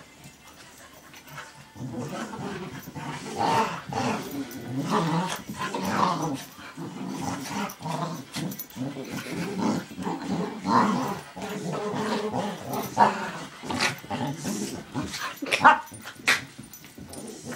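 Two dogs play-fighting, growling almost continuously from about two seconds in, with a few sharper, louder peaks near the end. The growls are play, not aggression.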